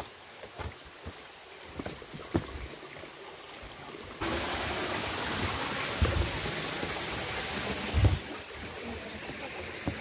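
A few light knocks and steps, then from about four seconds in the steady rush of stream water starts abruptly, with two dull thumps under it.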